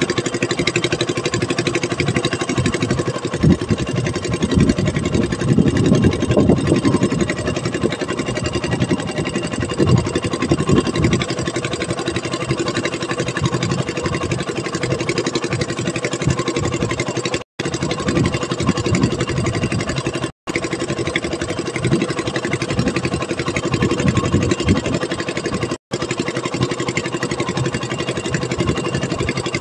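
A small fishing boat's engine running steadily as the boat moves across the water. The sound cuts out briefly three times in the second half.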